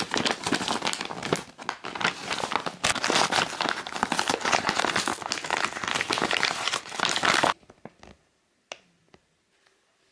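Plastic mailing bag crinkling and crackling loudly as hands handle it, a dense rustle that stops abruptly about seven and a half seconds in; a few faint taps follow.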